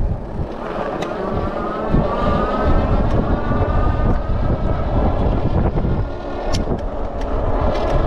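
Wind buffeting the microphone and tyres rolling on asphalt as a Wallke H9 AWD e-bike rides along, with the hub motors' whine rising in pitch over the first few seconds as it picks up speed. A few sharp clicks near the end.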